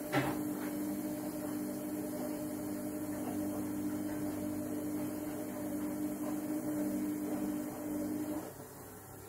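A steady low electrical hum from a running appliance, which stops about eight seconds in; a short click near the start.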